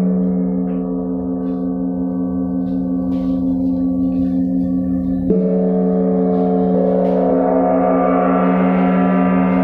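A 20-inch (50 cm) flat pure gong, a Chinese wind gong, rings on with a steady low hum and many overtones after a mallet stroke. It is struck again with the padded mallet about five seconds in, and its higher overtones then swell into a shimmer.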